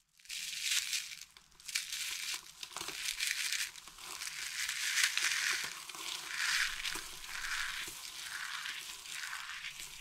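Balls of packed dry lilac and mint soap shavings crushed in the hands, crumbling into loose flakes with a dry crackling crunch. The crunch comes in repeated squeezes, about one a second in the second half.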